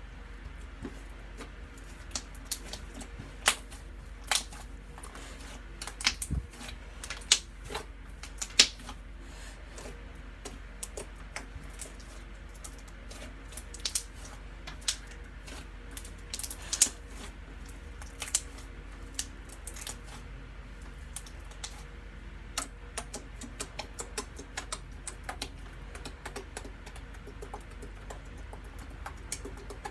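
Slime being played with by hand, making irregular sharp clicks and pops, a few of them much louder than the rest.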